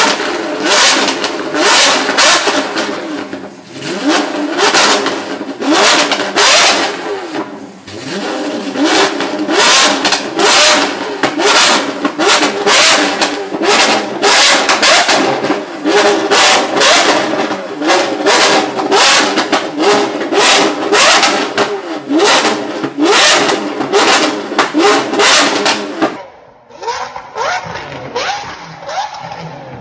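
Lamborghini Aventador SVJ's naturally aspirated V12 with a modified exhaust, revved hard over and over in quick blips while standing still, on its stock engine tune. Near the end it switches to a quieter recording of the same car after its tune.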